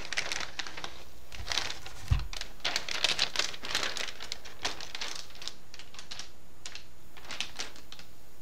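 Metallic anti-static shielding bag crinkling as a motherboard is slid out of it, with a soft thump about two seconds in, then scattered light clicks and rustles.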